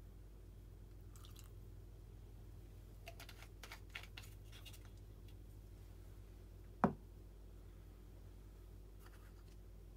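Faint clicks and rattles of small things being handled, then a single sharp knock about two thirds of the way in as a small glass bottle is set down on a wooden workbench.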